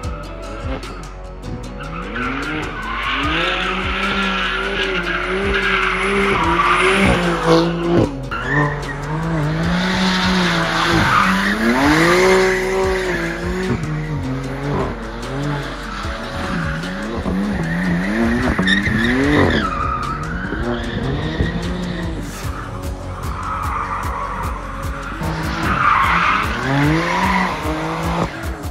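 BMW M4 and M3 drifting: engines revving up and down over and over, with tires squealing and skidding on tarmac.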